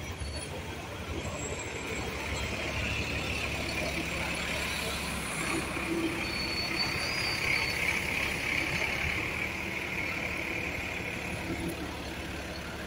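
Steady city street traffic noise, with a bus running close by at the start.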